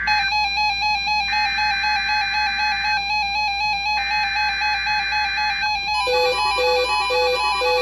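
NOAA Weather Radio SAME alert header for a required weekly test: harsh two-tone digital data bursts, repeated with about a second's pause between them, the last ending about six seconds in. Under them plays a synthesized electronic melody of bright beeping notes that changes to a new pulsing pattern as the bursts end.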